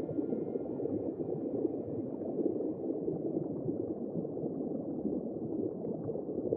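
Steady bubbling, gurgling water noise with no clear pitch.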